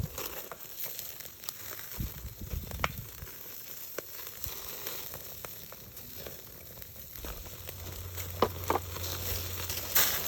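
Food sizzling as it cooks, with scattered crackles and pops. A low steady hum comes in near the end.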